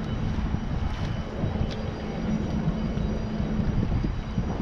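Low, steady rumble of the Great Lakes freighter American Century's diesel engines as the ship passes close by, with a faint steady hum that drops out near the end.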